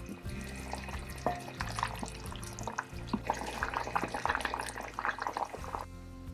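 Background music over liquid in a cooking pot: an irregular patter of bubbling and splashing that grows dense about three seconds in and cuts off abruptly near the end.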